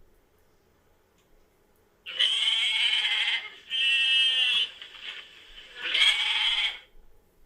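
A goat bleating three times, each call about a second long with short gaps between.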